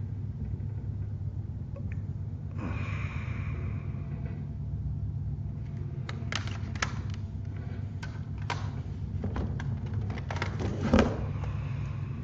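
Plastic CD jewel cases clicking and clacking as they are handled and shuffled, with a sliding rustle about three seconds in and a louder knock near the end. A steady low hum runs underneath.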